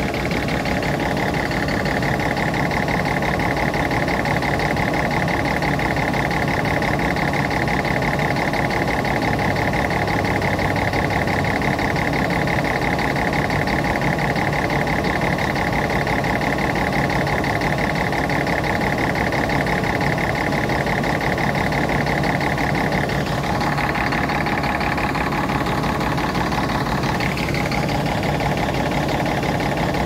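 Scania K380 coach's diesel engine idling steadily while parked. A high steady whine runs over it and breaks off about three-quarters of the way through.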